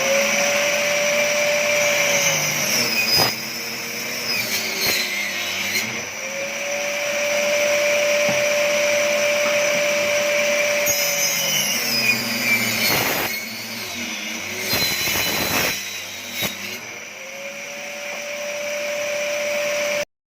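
Angle grinder mounted as a table saw, its motor running at a high steady pitch. Twice the pitch sags for several seconds as the blade is loaded by cutting through wood, then rises back to full speed.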